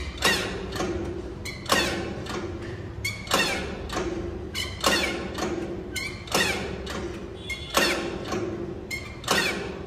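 Background music with a slow, steady beat: a strong drum hit about every second and a half, softer hits between, and a held low note under each hit.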